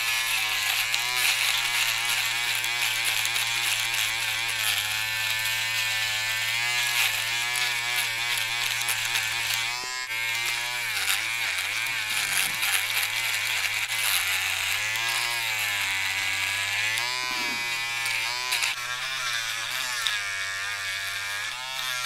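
Taurus mini electric foil shaver running as it shaves moustache hair, a steady motor buzz whose pitch wavers up and down throughout.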